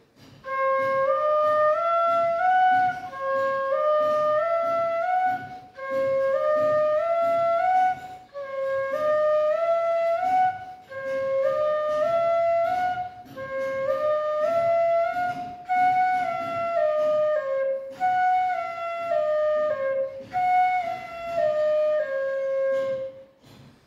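Bamboo bansuri flute playing a slow finger exercise: short phrases of four notes, each a step apart, as the fingers are lifted one at a time. Early phrases climb and the last few step back down, with a brief breath between phrases.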